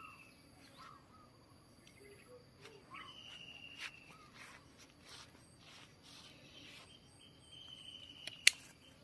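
Birds singing: a repeated, slightly falling whistled note and short chirps, over a steady high insect drone with pulsing trills. A few sharp clicks come through, the loudest near the end.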